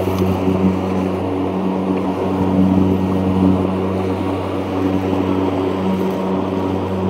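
EGO Z6 battery-powered zero-turn mower running across a lawn, its electric motors giving a steady hum of fixed pitch with a rushing noise under it; the blades under the 42-inch dual-blade deck are still engaged.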